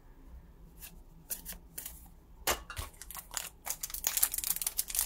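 Foil Pokémon booster-pack wrappers crinkling and crackling as they are handled, after a quiet first half with a few light clicks.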